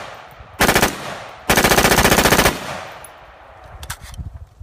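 M4-style carbine firing on full automatic: a short burst, then a longer burst of about a second, each fading out in an echo.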